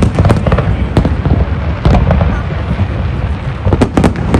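Fireworks display: many sharp bangs and crackles in quick succession over a steady low rumble, coming thickest near the end.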